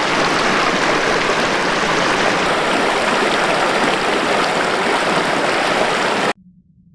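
Rushing water of a snowy mountain river, a steady loud rush that cuts off suddenly about six seconds in, leaving only a faint low hum.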